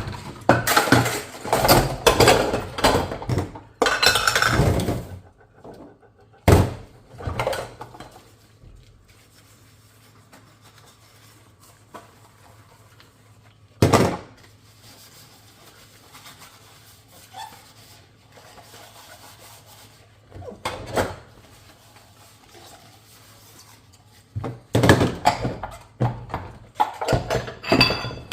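Dishes and cutlery being handled during hand washing: dense clattering for the first few seconds, then single knocks several seconds apart, and more clattering near the end.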